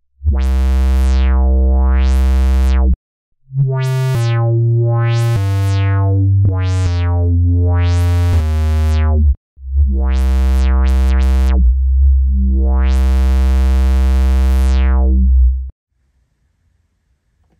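Roland synthesizer running its Juno-106 model, playing low sustained bass notes with a few pitch changes in the middle. The resonant filter's cutoff is swept down and back up by hand, so the tone repeatedly closes to a dull low hum and opens out bright again. The notes come in three phrases, with short breaks about three and nine and a half seconds in, and stop cleanly near the end.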